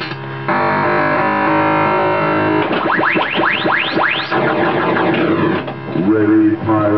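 Music with distorted, guitar-like pitched tones and held chords, broken about three seconds in by a run of five or so quick rising electronic sweeps.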